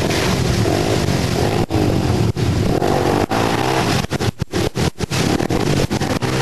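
ATV engine revving up and down as the quad drives through shallow river water, with the sound briefly cutting out several times about four to five seconds in.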